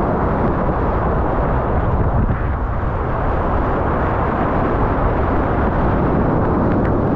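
Whitewater rapids rushing loudly and steadily around a kayak, heard close from the boat, with the sound sitting mostly low and deep.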